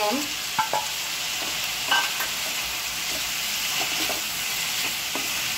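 Vegetables stir-frying over a high flame in a metal pan: a steady sizzle, with the spatula scraping and knocking against the pan now and then.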